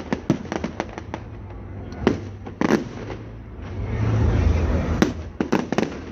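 Fireworks going off: a rapid string of sharp cracks, then a few louder single bangs, then a low rumble with another quick cluster of bangs near the end.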